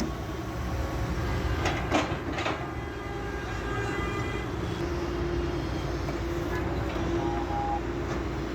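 SANY SY210C-9 excavator's diesel engine running steadily under work, with a few metallic clanks about two seconds in and a steady hydraulic whine in the second half.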